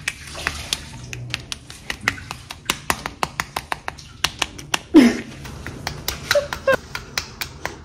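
Crisp baked phyllo pastry crackling and crunching as a metal server cuts into it, a quick run of sharp irregular clicks. About five seconds in, a short louder sound falls in pitch.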